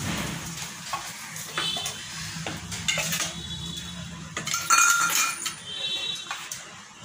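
Hot oil sizzling in a kadhai as the last fried dal vadas are lifted out with a metal spoon, the frying fading as the pan empties. Sharp metal clinks of the spoon against the pan and plate, the loudest about five seconds in.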